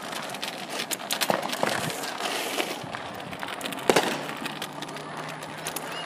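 Fireworks and firecrackers going off: a scatter of sharp pops and crackles, with the loudest bang about four seconds in.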